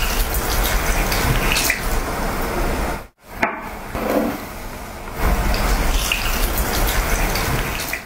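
A carbonated soft drink is poured into a glass mug, splashing and fizzing as a loud, steady rush. The rush cuts off abruptly about three seconds in. After a quieter stretch, a similar rushing noise returns about two seconds later.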